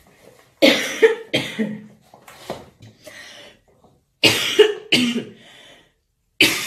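A woman coughing in harsh fits: three coughs about half a second in, another three a little after four seconds, and one more near the end.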